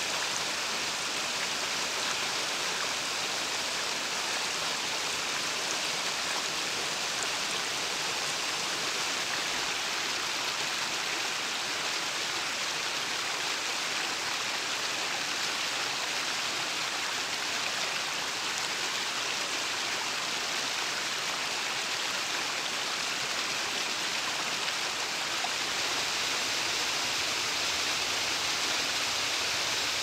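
Mountain stream rushing steadily over rocks in small cascades.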